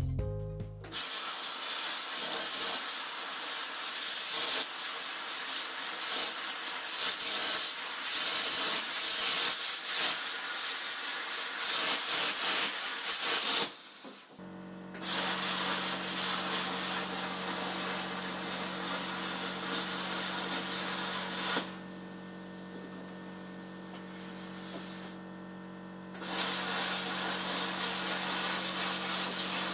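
Electric arc welding of steel: the arc hisses and crackles in long runs, breaking off briefly about halfway through and for a few seconds later on. A steady hum from the welding machine runs under the second half.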